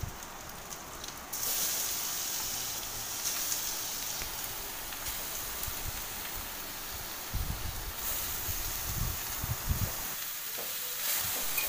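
Grated arum (kachu) sizzling in hot oil with whole spices in a steel kadai. The sizzle jumps louder about a second in as the arum goes in, and a metal spatula stirring it gives a few low knocks later on.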